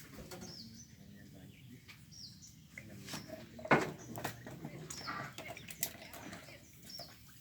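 Small bird chirping, short high chirps that fall in pitch, repeated every second or two, among scattered clicks and one sharp knock a little past halfway.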